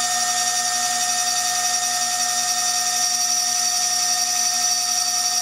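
High-speed CNC milling spindle running steadily with a high, unchanging whine while its cutter engraves glass on a beer bottle.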